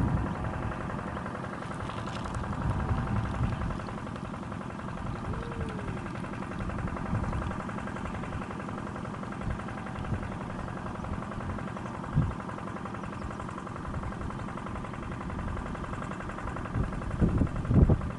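An engine running steadily at an even pitch, with a few short knocks near the end.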